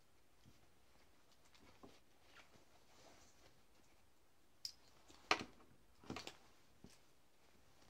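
A fur hat handled in the hands: faint cloth rustling, then a few sharp clicks and taps from about four and a half seconds in.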